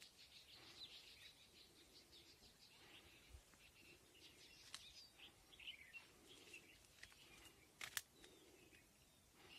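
Faint bird chirps and short calls over quiet ambience, with a sharp click a little before the end.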